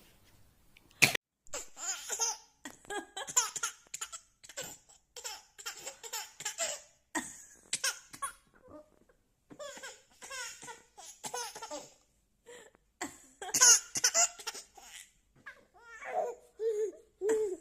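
A baby laughing in many short bursts, broken by a couple of brief pauses, with the loudest fit about thirteen seconds in. A single sharp click about a second in.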